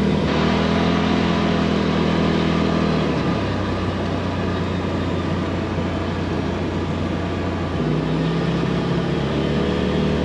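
Side-by-side UTV engine running while driving on a dirt forest road, over a steady rushing noise. The engine note shifts about three seconds in and shifts again near the end.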